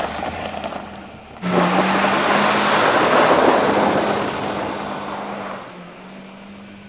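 A car pulling away fast on a dirt road, its tyres throwing up gravel and dust, with its engine note underneath. The noise comes in suddenly about a second and a half in and then fades as the car moves off.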